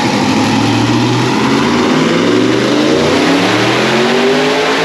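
LS1 twin-turbo V8 running under load and revving, its pitch climbing over the last couple of seconds. It runs clean now that the bad coil packs have been replaced, with the misfire cured.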